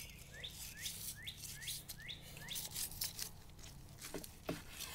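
A songbird singing a series of quick rising chirps, about two a second, for the first three seconds. Faint scattered crackles and two soft knocks follow about four seconds in.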